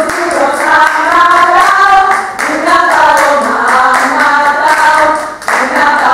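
Several voices singing a song together over steady rhythmic hand-clapping.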